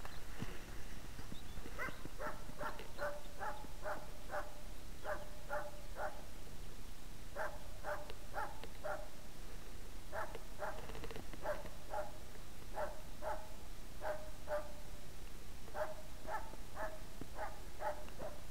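A hunting dog barking in quick runs of three to eight sharp barks, about three a second, with short pauses between runs: the steady bay barking of a dog holding game at bay.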